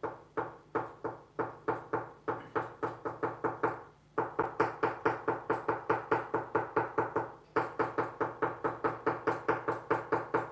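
Marker tip dabbed again and again onto paper over a hardboard desk, stippling ink dots: quick rhythmic taps, each with a short ring from the board. They start at about three a second and speed up to about five a second, in runs broken by two brief pauses.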